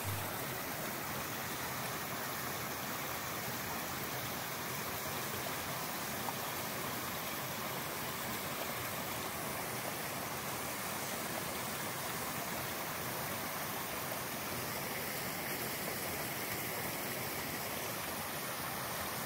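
A small brook running steadily over a shallow cascade, an even rush of water.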